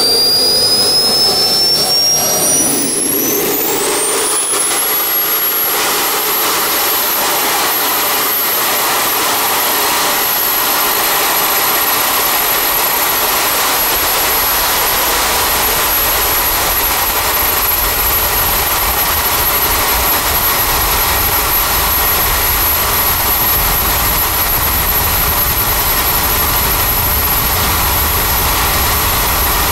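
Kart's KingTech small turbojet engine at full throttle. Its whine climbs steeply over the first few seconds as it spools up, then holds one high steady pitch over a loud jet roar. About halfway in, a low rumble builds beneath it as the kart gathers speed.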